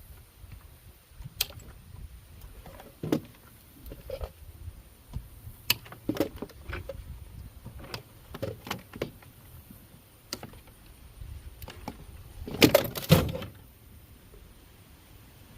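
Scattered knocks, clicks and clunks of parts being handled and pulled while a refrigerator is taken apart for scrap, with a louder burst of clattering about thirteen seconds in.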